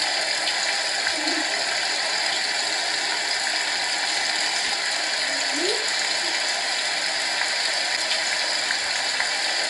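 HoMedics SoundSpa SS-2000 sound machine playing its rain setting: a steady hiss of recorded rainfall from its small built-in speaker.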